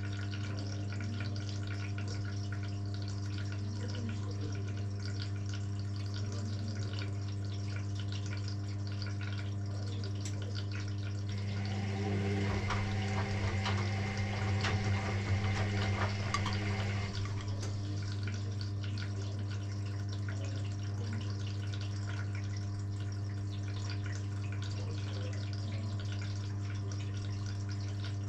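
Electrolux EW6S404WU washing machine partway through a wash cycle: a steady electrical hum over water rushing and swishing in the machine. The water noise swells louder for about five seconds in the middle, then settles back.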